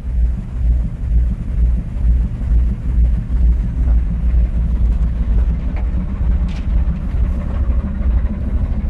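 Low, steady rumble of a ship under way at sea, swelling and fading unevenly.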